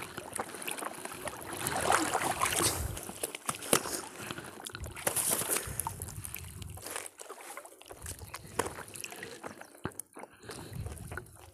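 Irregular splashing and trickling of water as a wet nylon gill net is hauled by hand out of the lake over the side of a small boat, with small knocks from the handling.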